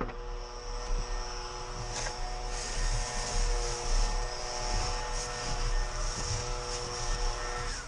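Snow shovel scraping soft snow off wooden deck boards in repeated short strokes, over a steady droning hum.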